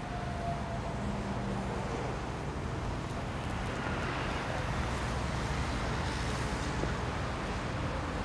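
Steady low rumble of vehicle or road-traffic noise, even throughout with no distinct events.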